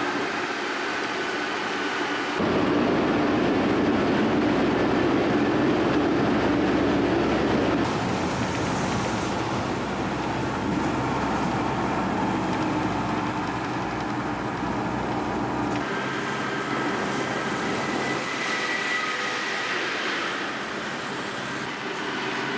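Steady rumble and rattle of a big-tyred glacier tour vehicle on the move, heard from on board. The sound changes abruptly three times where the footage is spliced.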